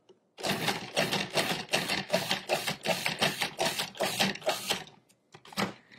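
Cuisinart 14-cup food processor pulsing, its chopping blade cutting through seeded tomatoes and cilantro in a rapid, even rhythm of about four or five strokes a second. It starts about half a second in and stops about five seconds in, the tomatoes now finely chopped.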